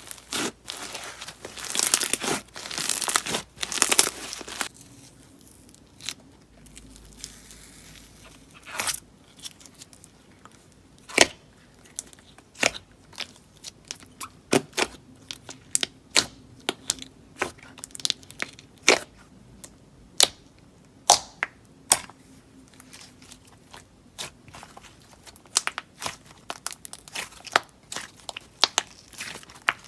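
Slime being mixed and kneaded by hand with clay: a few seconds of dense crackling, then sharp sticky pops and clicks at irregular intervals.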